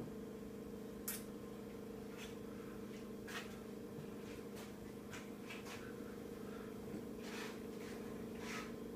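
Faint, irregular crackles and pops, about nine of them, from fire-retardant treated Southern Yellow Pine charring in a Bunsen burner flame, over a steady low hum.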